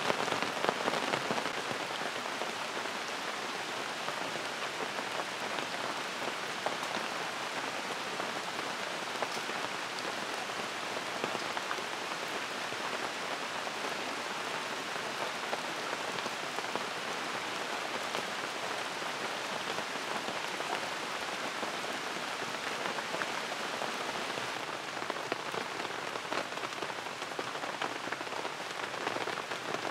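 Steady rain falling on a camp tarp, with many single drops striking close by.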